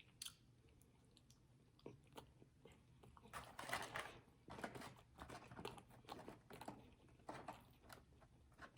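Faint close-up chewing and mouth sounds: irregular soft smacks and crunches of someone eating, starting about two seconds in.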